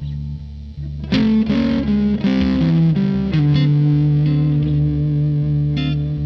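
Electric guitar played through a fuzz distortion effect: a sharp attack about a second in starts a quick run of notes that settles into one long sustained low note, over a constant low drone.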